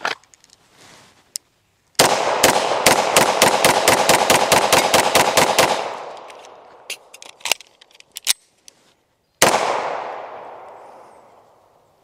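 A Beretta M9A4 9mm pistol firing steel-case ammunition in a rapid string of about fifteen shots in under four seconds. A few clicks of a magazine change follow, then one more shot that rings out and fades. The pistol cycles without a malfunction.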